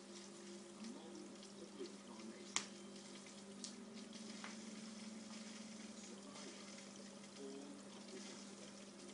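Faint steady hum and water trickle of an aquarium filter, with a single sharp click about two and a half seconds in.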